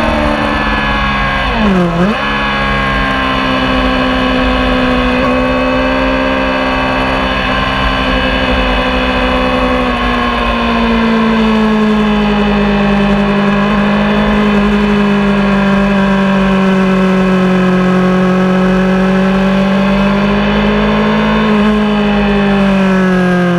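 Racing motorcycle engine heard from an onboard camera, running hard at high revs. Its note dips sharply and recovers about two seconds in, drops a step about ten seconds in, then holds nearly steady.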